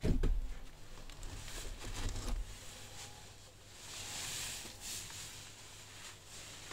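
Plastic plant pot being handled and moved: a low bump at the start, then soft rustling and knocking, with a brief hiss about four seconds in.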